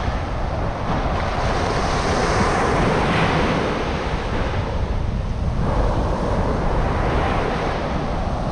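Ocean surf breaking and washing up the beach, swelling twice as waves come in, with wind rumbling on the microphone.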